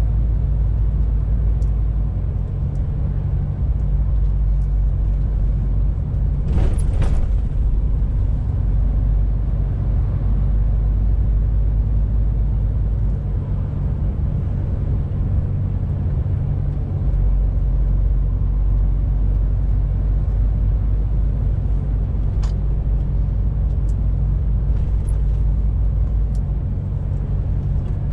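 Inside the cab of a 2021 MAN TGX 18.470 truck on the move: its straight-six diesel runs with a steady low drone. The deepest part of the note eases off a couple of seconds in and returns at about seventeen seconds. A single short, sharp noise comes about seven seconds in, and a few faint ticks come near the end.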